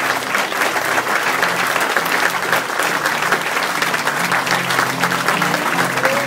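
Applause from a roomful of guests: dense, continuous clapping, with instrumental music playing underneath.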